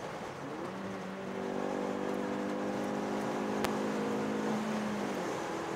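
Car engine and road noise inside the cabin at highway cruising speed. The engine note rises slightly about half a second in, holds steady, then changes near the end.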